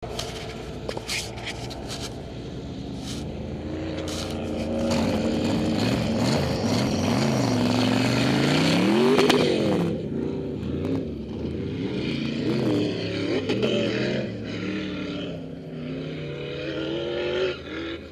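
A 700 hp sand buggy engine revving hard on sand. It comes up close and passes about nine seconds in, its pitch rising then falling, then revs up and down repeatedly as it climbs away and grows fainter.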